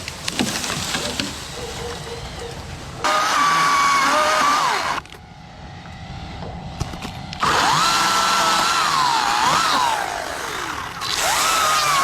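Chainsaw running at high revs in several loud stretches that start and stop abruptly, its pitch rising and falling as the throttle and cutting load change. Before the first stretch, a few knocks and cracks.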